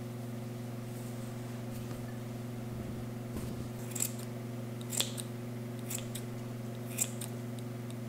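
Scissors snipping through a bundle of bulky wool yarn, trimming it: about four sharp snips, roughly one a second, in the second half, over a steady low hum.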